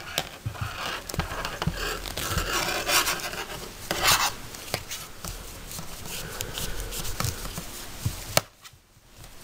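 Wool yarn and circular knitting needles being worked by hand: steady rubbing and scratching with many small needle clicks as cable and purl stitches are knitted, and one sharper click near the end.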